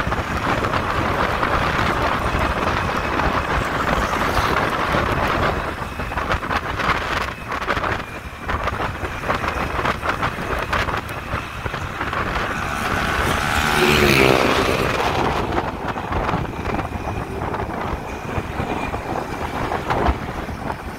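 Wind buffeting the microphone of a moving motorcycle, with road and engine noise underneath. About two-thirds of the way in an engine note swells to its loudest and then fades.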